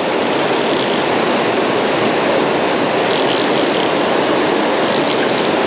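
River water rushing steadily through a whitewater riffle, the current running high and fast.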